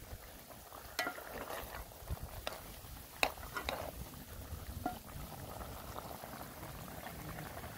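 Curry chicken simmering in a pot, bubbling as its sauce cooks down, with a few sharp clicks.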